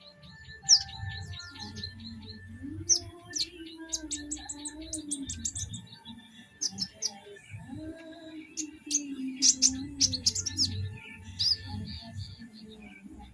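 Young kolibri ninja (konin), a sunbird, chirping in quick, sharp high twitters and short trills, with music playing underneath.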